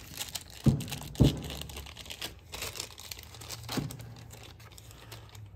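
Clear plastic wrapping crinkling and rustling as a gas strut is pulled out of its bag, with two sharp knocks about a second in.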